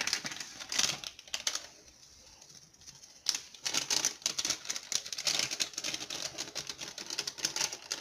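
Quick, dry crackling clicks of dried oregano being sprinkled over a pizza by hand, in a short burst near the start and a longer run from about three seconds in.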